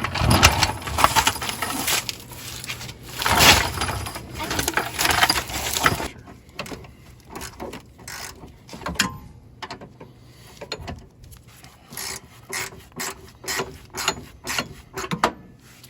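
Ratchet wrench working a bolt: a loud stretch of rattling mechanical noise for about the first six seconds, then short ratcheting clicks in repeated strokes, about two a second.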